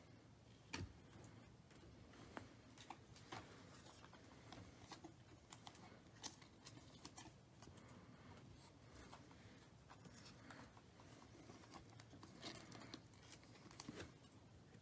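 Faint, scattered clicks and light scratchy rustles of Panini Prizm basketball cards being handled, slid and set down in stacks on a table, with a little more rustling near the end as a foil card pack is handled and opened.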